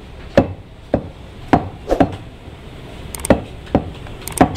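Heavy butcher's cleaver chopping goat meat on a wooden tree-stump block: about eight sharp chops at uneven intervals.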